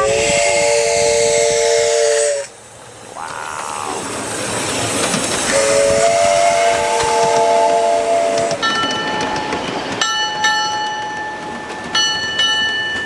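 Miniature live steam locomotive blowing its chime whistle twice, each blast a chord of several notes held two to three seconds, with a hiss of steam between the blasts. In the last few seconds, high metallic ringing and clicking as the train rolls by on the rails.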